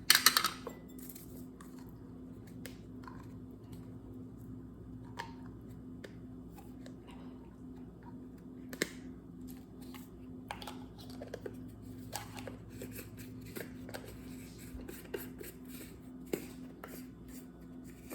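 Metal measuring spoon clinking, then lighter scattered taps and scrapes as it is levelled and tipped into a bowl, over a steady low hum. The loudest clink comes right at the start.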